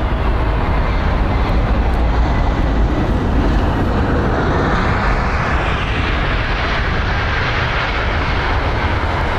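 Airbus A321neo jet airliner taking off, its engines at takeoff power making a loud, steady rumble and roar. The hiss grows brighter from about five seconds in.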